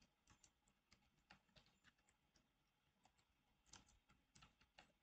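Faint typing on a computer keyboard: irregular single key clicks, coming a little faster near the end.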